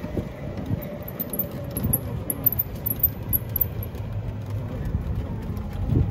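Open resort buggy on the move: a steady low rumble of its running and tyres on the path, with wind over the open sides. Faint high-pitched chirping comes and goes during the first half.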